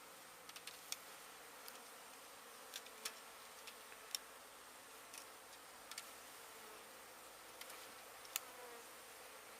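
Honey bees buzzing faintly and steadily, a few flying close with a wavering pitch. About a dozen light, sharp clicks are scattered through it.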